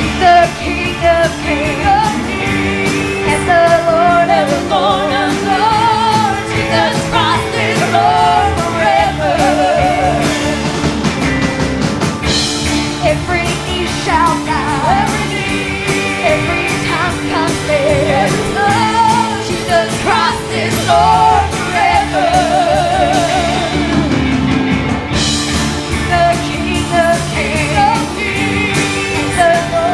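Gospel music played live by a band: a lead voice singing a wavering melody with vibrato over steady held chords and a regular drum beat.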